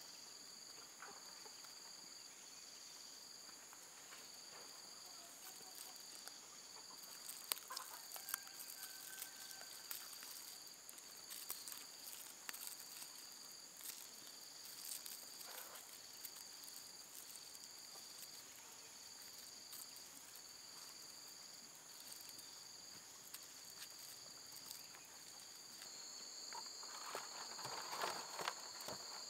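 A steady chorus of insects: a high trill pulsing on and off at an even rate over a continuous higher buzz. Faint clicks and rustles come from jicama roots being handled, with a short hen call about eight seconds in and louder rustling near the end.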